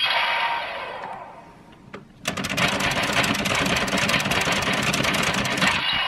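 DX Geartlinger toy blaster. An electronic sound from its speaker fades out at the start, there is a single click about two seconds in, and then a loud run of rapid, even clicking lasts about three and a half seconds while its side gear is spun. The clicking cuts off suddenly near the end.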